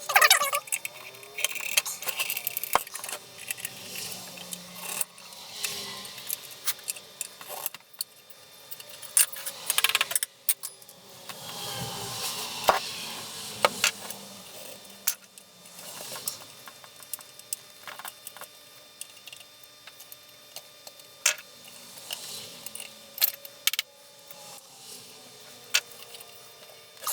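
Small screwdrivers and loose metal parts clicking, clinking and rattling in irregular bursts while an old Craftsman router is taken apart by hand.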